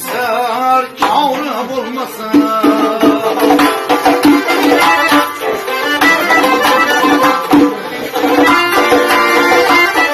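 Long-necked plucked lute played solo in Khorezmian folk style: a quick, rhythmic run of strummed and picked notes.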